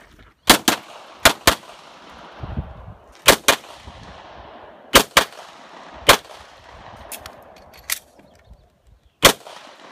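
Pistol shots fired at a practical-shooting stage: four quick pairs of shots (double-taps) in the first five seconds, then single loud shots about six seconds in and near the end, with a couple of fainter shots between. Each shot trails off in a short echo.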